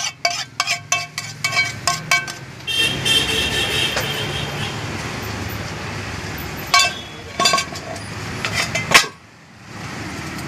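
A metal utensil rapping a cooking pan, about four ringing taps a second, as the last noodles are knocked out, then steady street traffic with a horn sounding briefly about three seconds in.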